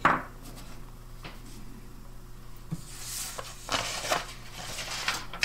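Fingers handling and turning a miniature vacuum tube with a metal shield: soft rubbing and rustling noises that swell several times in the second half, with a short sharp brush of noise at the very start. A steady low hum runs underneath.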